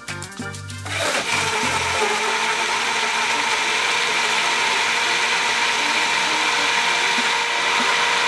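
BlendJet 2 cordless portable blender switched on about a second in and running steadily, blending cucumber chunks in water into a green liquid.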